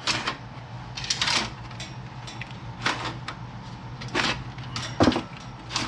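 Car hood release cable being pulled by hand through the firewall grommet: a series of short scrapes and rustles as the cable slides and catches.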